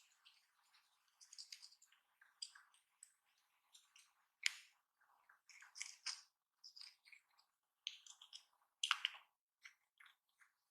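Slime being squished and kneaded by hand: faint, irregular sticky crackles and squelches, with sharper pops about four and a half and nine seconds in.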